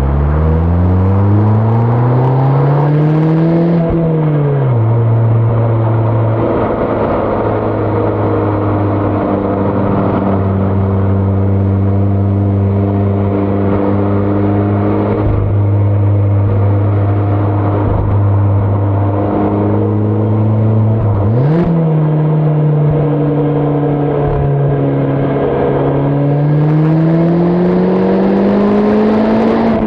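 Mazda ND Roadster's (MX-5) four-cylinder engine and exhaust under way. It pulls up in pitch, then drops back at a gear change about 4 seconds in, and holds a steady cruise. About 21 seconds in the revs jump quickly at a downshift, then climb again and fall back near the end.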